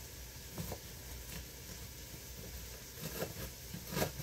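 A few irregular knocks of a knife cutting vegetables on a wooden cutting board, the loudest near the end, over a faint steady hiss.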